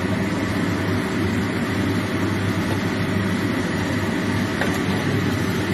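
Stir-fry cooking in a wok: food sizzling under a steady low rumble, with a few faint clicks.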